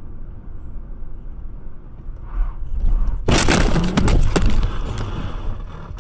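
Car crash heard from inside a dashcam car: steady road noise, then about three seconds in a sudden loud impact with crunching and breaking, several sharp cracks over about a second and a half before it dies down.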